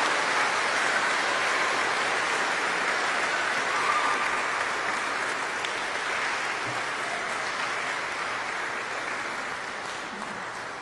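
Audience applauding, the clapping slowly fading over the last few seconds.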